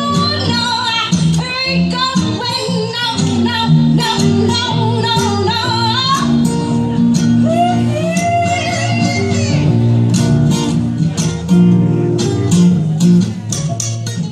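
Live acoustic blues band playing a slow blues: acoustic guitar and double bass under a wavering lead melody that runs through the first six seconds and returns briefly around eight seconds. Quicker plucked guitar notes follow near the end.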